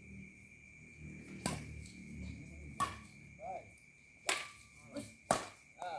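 Badminton rackets striking a shuttlecock in a rally: four sharp cracks, roughly a second to a second and a half apart.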